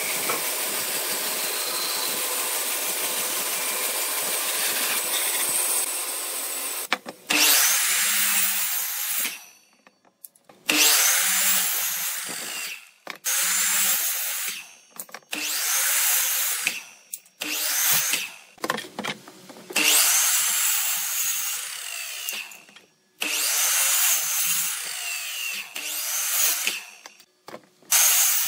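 A band saw cutting through a thick timber beam, a steady noise for about seven seconds. Then a miter saw cuts through stacked thin wooden strips in about eight short bursts, each a second or two long, with brief pauses between cuts.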